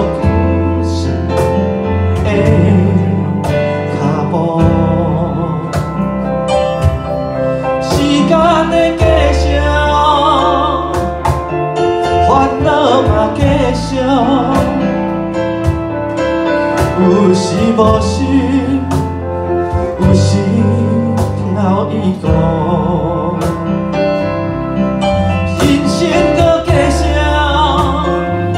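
Live band playing: electric keyboard, upright bass, electric guitar and cajón. A steady bass line and regular hand strikes on the cajón run under it, and a melody line bends and wavers in pitch through the middle of the passage.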